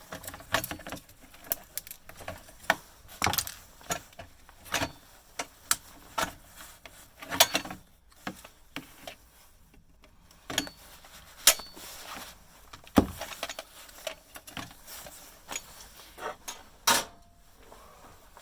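Irregular clicks, taps and knocks of hand tools against the metal and plastic parts of a bread maker being taken apart.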